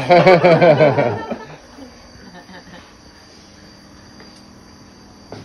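Insects droning steadily with a thin, high, unbroken tone, after a loud burst of a person's voice during the first second or so.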